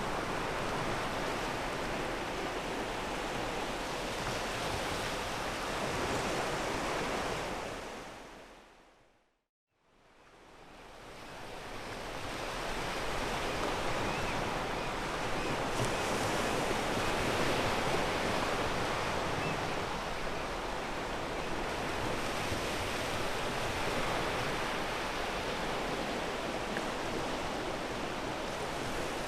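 Waves washing onto a pebble beach: steady surf that fades out to silence about a third of the way in, then fades back up over a few seconds.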